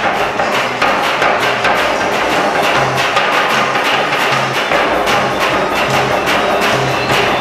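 Percussive music: many fast strikes over a short low note that repeats every half second or so.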